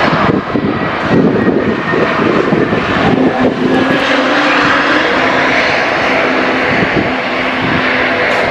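Jet engines of a GoAir Airbus A320 airliner rolling out along the runway just after touchdown: a loud, continuous rush. A steady low hum joins in a few seconds in and drops out near the end.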